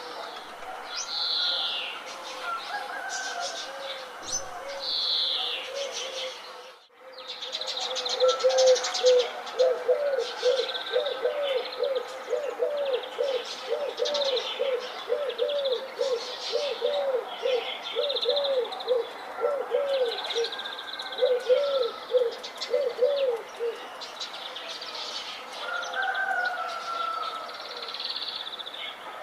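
Morning bird chorus of high chirps and whistles, with a low arched hooting call repeated quickly, a little under twice a second, from about eight seconds in until about twenty-four seconds in. The sound drops out briefly about seven seconds in.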